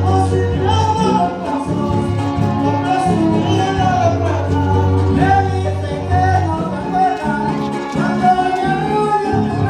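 Son huasteco (huapango) played by a huasteco trio of violin, jarana and huapanguera, with singing over a steady bass line.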